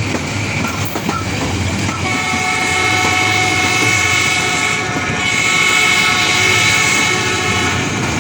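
ZCU-30 locomotive's horn sounding two long blasts with a brief gap between them, starting about two seconds in. Underneath runs the steady noise of the moving train, with clickety-clack.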